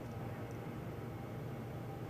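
Quiet room tone: a steady low hum and faint hiss, with no distinct sounds.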